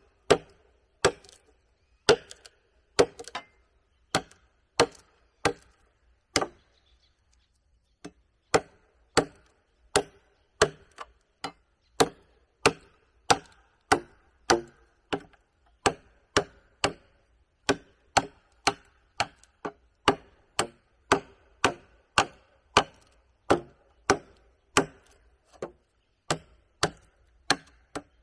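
Wood being chopped with a hand tool: sharp strikes at about two a second, each with a short ring, with a pause of a second or so about six and a half seconds in.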